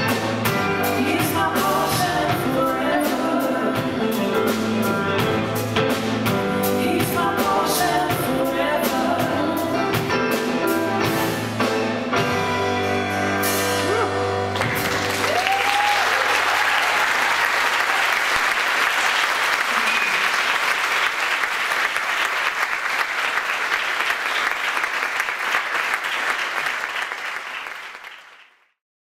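A live band with piano, drums, bass, electric guitar and lead and backing vocals plays the song's final bars, stopping about halfway through. The audience then applauds, with one whoop, until the sound fades out near the end.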